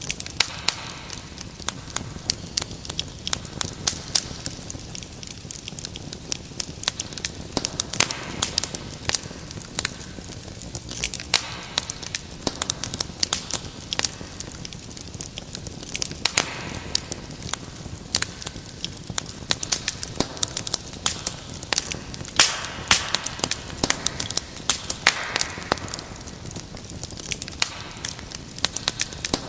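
Wood fire crackling, with many irregular sharp pops and snaps over a steady low hiss and occasional brief swells of louder sputtering.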